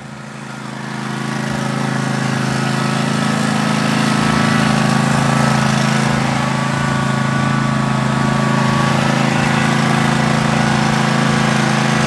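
John Deere S240 riding lawn tractor's engine running steadily as the tractor is driven, growing louder over the first couple of seconds and then holding an even hum.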